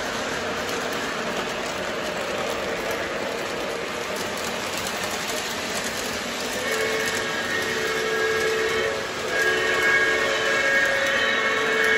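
Lionel O-gauge model trains rolling steadily on the track, then a locomotive's onboard sound system blows two long chime whistle blasts about halfway through, the second longer than the first.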